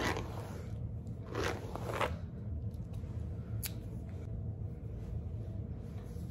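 Hair being brushed and handled close to the microphone: three short brushing strokes in the first two seconds, then a single light click about three and a half seconds in, over a steady low hum.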